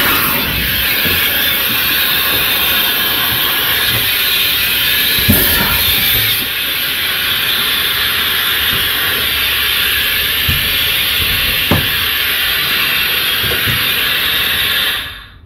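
Loud, steady hiss of compressed air escaping from a semi-trailer's air brake line as the air hose is uncoupled from the tractor unit. It cuts off suddenly near the end when the air is shut off.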